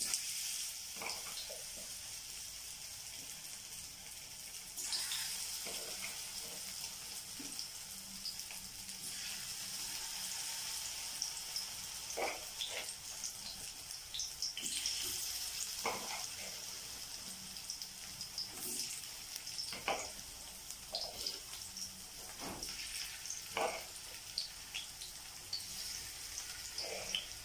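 Batter-coated cauliflower florets frying in hot oil in a nonstick wok, a steady sizzle. Scattered light clicks and taps come from the spoon against the pan as more florets are dropped in.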